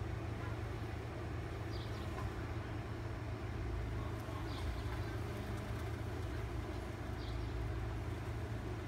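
Steady low rumble of distant road traffic, with a short high chirp three times, about every two and a half seconds.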